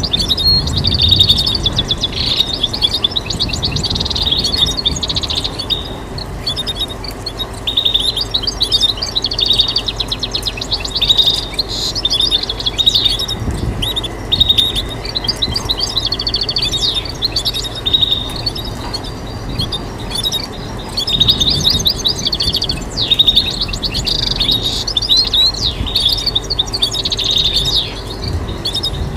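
European goldfinch singing: a continuous run of fast, twittering trills and chirps, over low background noise.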